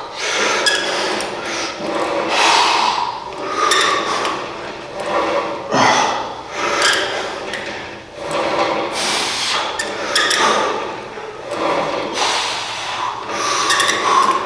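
Cable machine's cable running through its pulleys during a set of cable curls, a rubbing rasp that swells and fades with each rep, about once every second or so.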